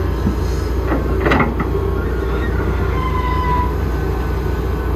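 Heavy excavator at work: its diesel engine running steadily with a deep rumble, and a few sharp knocks about a second in.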